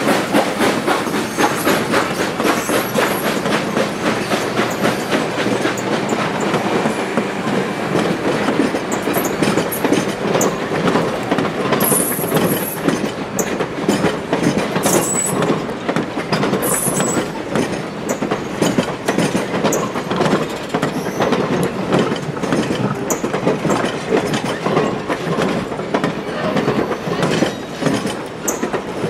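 Steel wheels of vintage passenger coaches rolling slowly past close by, clicking steadily over the rail joints, with a few brief high-pitched wheel squeals around the middle.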